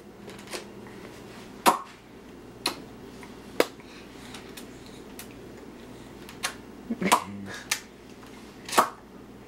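A child making sharp clicking and popping noises with his mouth, about nine separate clicks at uneven intervals, a few of them in quick succession about seven seconds in.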